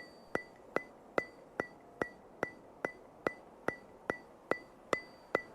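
A steady run of sharp ticks, about two and a half a second, each with a brief bright ring, like a metronome or clock.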